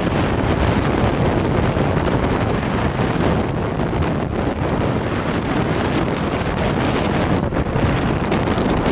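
Wind buffeting the microphone of a moving motorcycle, with motorcycle engines running underneath at a steady level.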